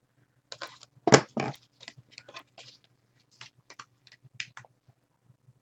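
Paper being handled and crinkled: a string of short, irregular rustles lasting about four seconds, the loudest about a second in.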